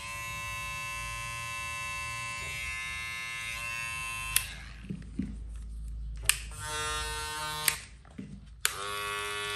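Cordless electric hair clippers switched on and off in turn. A silver metal-bodied clipper starts with a click and runs with a steady buzzing whine for about four seconds before clicking off; a second clipper then runs twice briefly, each run about a second and a half and each begun and ended with a click.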